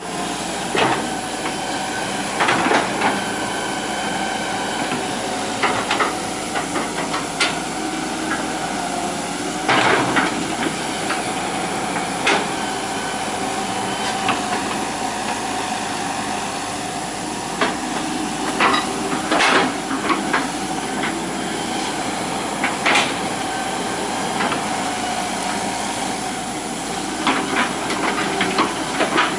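Hitachi EX120 hydraulic excavator running at work, a steady engine-and-hydraulic whine with irregular metallic clanks and knocks every few seconds.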